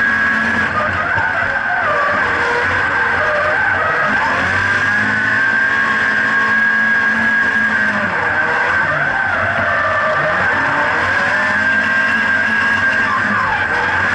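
Nissan 180SX drift car's turbocharged SR20DET four-cylinder under hard load, revs rising and falling, with a steady high-pitched squeal of the rear tyres sliding in a drift, heard from inside the cabin.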